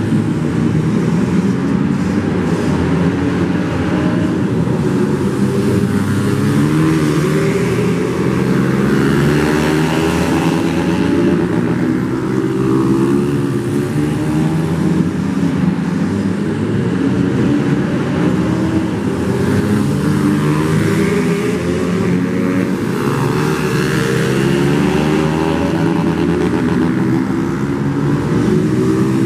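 Several flat-track racing motorcycles running laps on a dirt oval. Their engines overlap, each one rising and falling in pitch as the riders open the throttle and back off.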